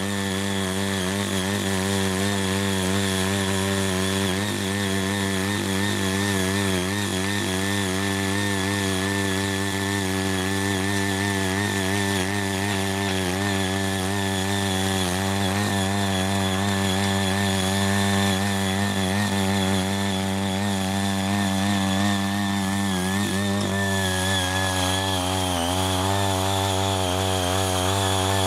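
Ching Yee CY80 mini cultivator's small engine running steadily under load while its eight rotary tines churn and loosen grassy soil, its pitch wavering slightly as the tines bite.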